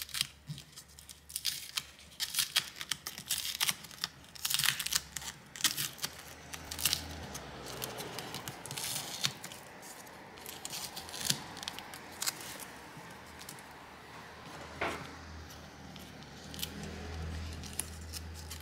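Adhesive fabric tape being peeled by hand off the inside of a GPS unit, with irregular crackling and short tearing rasps as the glue lets go.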